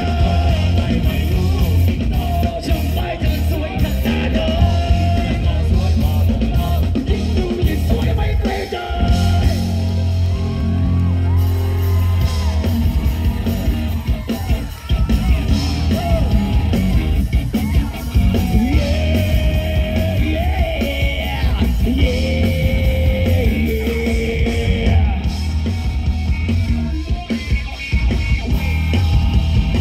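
Live rock band playing loud through a stage PA: electric guitar, bass guitar, keyboard and drums, with a vocalist singing and shouting over them.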